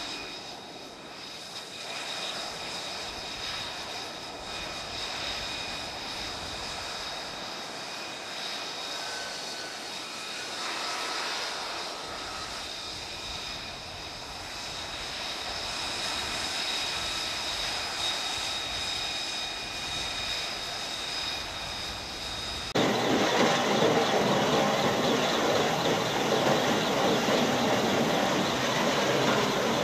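Jet aircraft engine running on a carrier flight deck, a steady high whine over a hiss of noise. About three-quarters of the way through it cuts abruptly to a louder, rougher steady roar.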